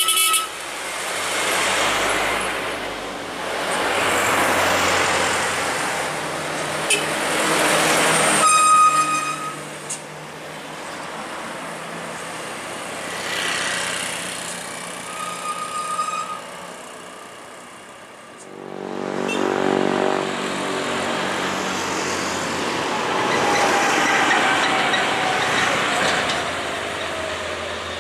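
Heavy diesel trucks and cars passing one after another on a highway climb, their engines swelling and fading as each goes by, with one engine labouring under load. Short horn beeps sound now and then.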